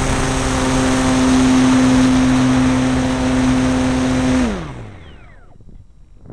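AcroMaster RC plane's electric motor and propeller running at a steady high pitch, with wind rushing over the wing-mounted microphone. About four and a half seconds in, the motor winds down, its pitch falling as it fades, leaving only faint wind.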